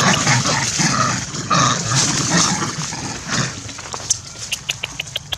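Macaques giving harsh, growling threat calls during a brief scuffle, followed near the end by dry leaves crackling in short clicks.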